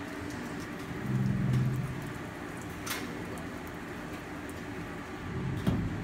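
Maidaid Halcyon D1000 pass-through commercial dishwasher running, water spraying steadily inside the cabinet. A low hum swells for about a second, about a second in, and there is a thump near the end.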